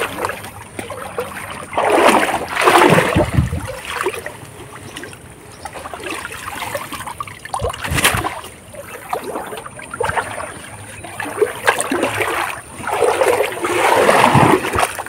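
River water splashing and trickling as someone moves through the shallows, with two louder stretches of splashing, about two seconds in and near the end, and a sharp knock about halfway through.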